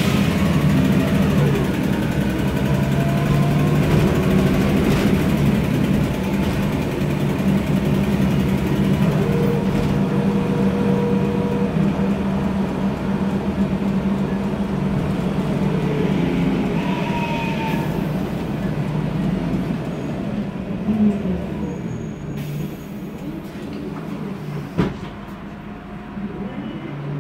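Interior sound of a MAN Lion's Classic city bus under way: its turbocharged CNG straight-six engine hums steadily while the ZF Ecomat 6-speed automatic gearbox whines, the whines rising and falling in pitch as the bus speeds up and slows. The sound eases off over the last few seconds, and a single sharp knock comes near the end.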